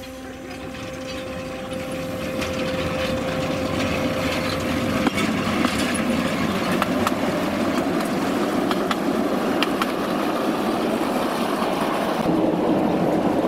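Miniature ride-on train rolling along the rails: a steady rumble of wheels on track with scattered light clicks, growing louder over the first few seconds and then holding steady.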